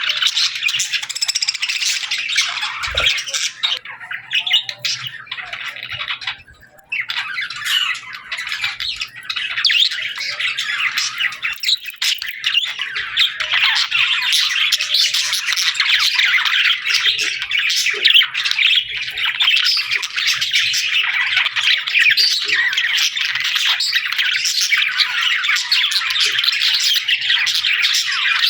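A flock of small birds chirping and chattering densely, with squawky calls, the chatter thinning briefly about five seconds in before filling back in.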